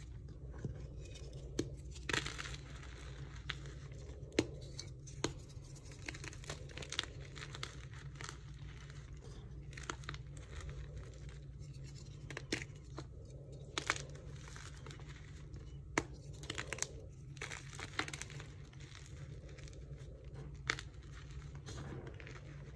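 Blocks of dyed gym chalk being crushed and crumbled by hand: irregular crunching with sharp snaps as pieces break, and gritty rubbing of chalk chunks and powder. A steady low hum runs underneath.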